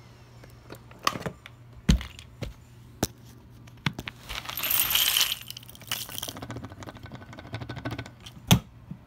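Hard plastic buttons and bottle caps clattering out of a vacuum cleaner's dust cup: a scatter of sharp clicks and knocks, with a denser rattle of tumbling debris about four and a half seconds in.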